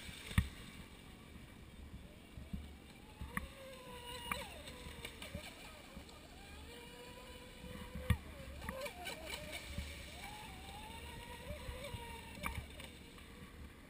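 Proboat Impulse 31 RC boat's brushless electric motor whining at high speed, its pitch rising and falling several times with throttle and passes, over a steady low rumble.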